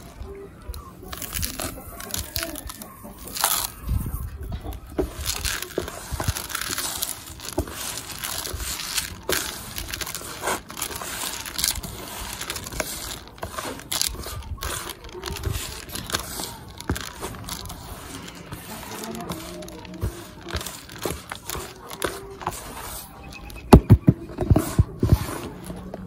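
Hands mixing damp wheat-bran mash with granular chicken feed in a plastic basin: continuous irregular crunching and rustling as the moist crumbs are squeezed and turned, with a few louder sharp knocks near the end.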